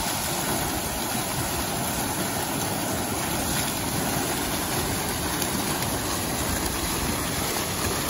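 Fountain jets gushing up and splashing steadily back into the basin, a continuous rushing of water.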